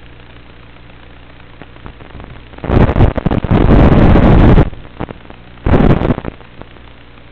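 Loud bursts of radio static from the analog FPV video link breaking up: a long burst of about two seconds, then a shorter one a second later, over a steady low hum.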